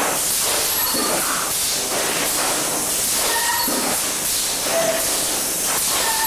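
Thermoforming machine running: a steady hiss of air and machine noise, with several short, steady tones at different pitches coming and going.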